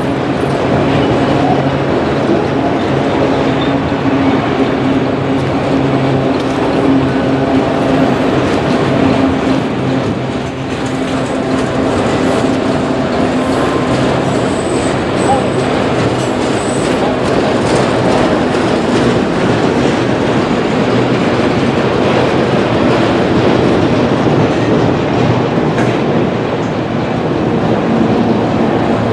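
Freight train of enclosed autorack cars rolling steadily past, a continuous rumble of steel wheels on rail.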